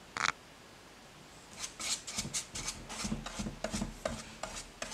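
Paintbrush stroking clear glue sealant onto a painted skateboard deck: a run of quick, scratchy brush strokes, several a second, starting about a second and a half in. Just before them, right at the start, there is a single short knock.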